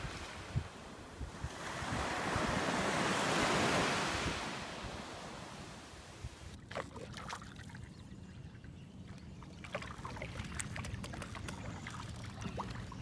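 Small waves washing onto a sandy beach, one wash swelling and fading over the first few seconds. After that it is quieter, with scattered small splashes and ticks.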